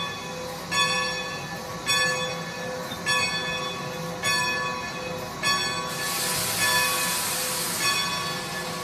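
Steam locomotive bell clanging steadily, about one stroke a second, as Great Western No. 90 moves slowly up to couple onto the train. About six seconds in, a loud hiss lasting some two seconds rises over the bell.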